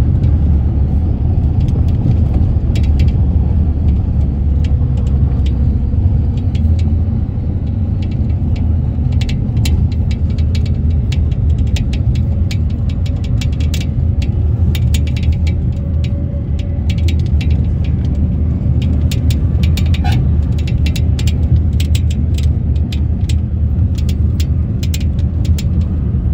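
Tractor engine running steadily as it drives along: a loud, even low rumble, with many rattling clicks through the middle part.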